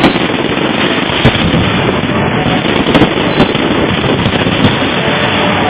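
Fireworks display going off in a dense, continuous barrage of bangs and crackles, with louder individual bangs standing out about a second in and around three seconds in.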